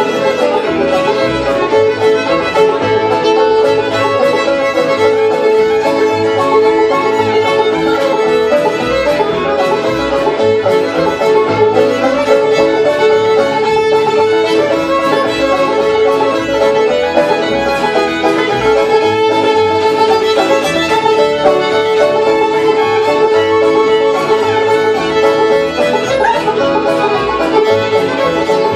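Live Cajun tune, led by a fiddle with acoustic guitar and upright bass accompanying, playing steadily.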